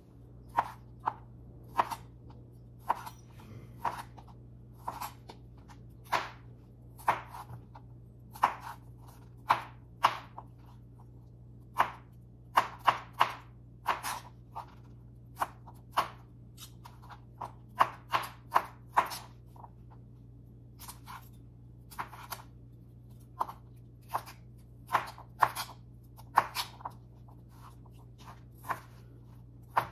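Kitchen knife chopping salad vegetables on a cutting board: sharp knocks at an uneven pace, one to three a second, with short pauses between runs of cuts.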